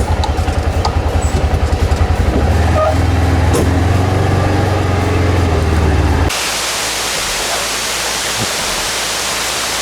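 A vehicle engine running with a low, pulsing rumble, then an abrupt change about six seconds in to a steady hiss of rain.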